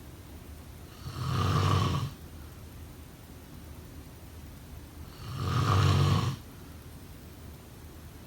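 Snoring: two snores about four seconds apart, each lasting about a second. A faint steady hiss fills the gaps between them.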